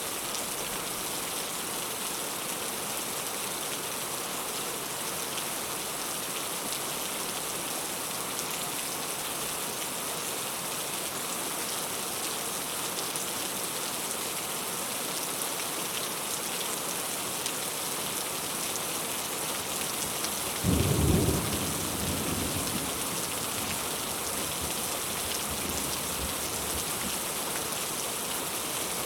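Heavy rain falling steadily in a thunderstorm. About two-thirds of the way through, a sudden loud thunderclap breaks in, rumbles for a couple of seconds and fades, leaving faint low rumbling under the rain.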